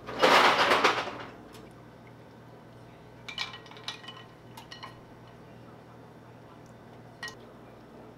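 Chopsticks and ice clinking against a ceramic bowl of ice water, several light ringing clinks about three to five seconds in and one more near the end. It opens with a loud rush of noise about a second long.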